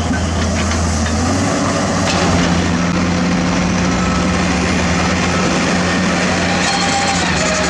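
Heavy diesel construction machinery running steadily, its low engine note stepping up in pitch about two seconds in.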